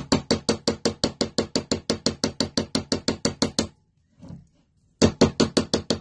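Jeweller's hammer striking sheet metal taped with masking tape to a steel bench block: light, even, bouncing blows, about six a second. They stop for just over a second about two-thirds of the way through, then start again.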